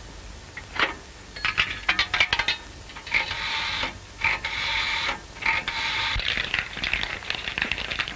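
Clicks and rattles from a wall telephone being dialled, then a telephone bell ringing in several short bursts.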